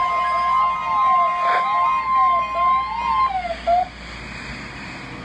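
NOAA Weather Radio's 1050 Hz warning alarm tone, a steady high-pitched beep. Under it runs a second tone that rises and falls like a siren about once a second, with a single click about a second and a half in. The steady tone cuts off about three seconds in and the wavering one just under a second later, leaving radio hiss.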